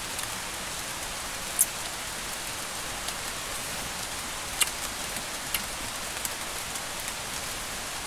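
Steady hiss of water, the stream-side ambience, with a few brief sharp clicks, the first about a second and a half in and two more around the middle.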